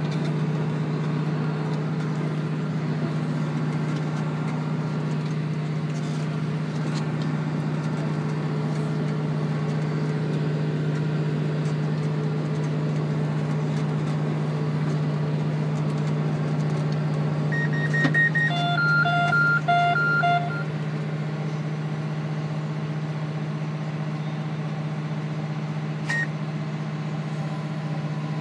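Tractor engine running steadily under load in the cab while pulling a McHale round baler through straw, a constant low drone. About two-thirds of the way in, a short run of electronic alarm beeps sounds for about three seconds from the baler's control box.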